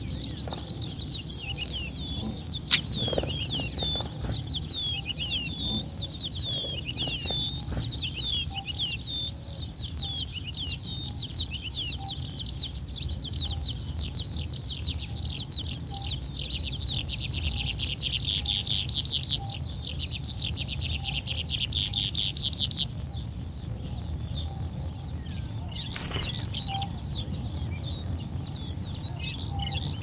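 Songbird nestlings in a ground nest begging with rapid high chirps while a parent is at the nest, building to a dense, continuous chatter that stops abruptly about three quarters of the way through.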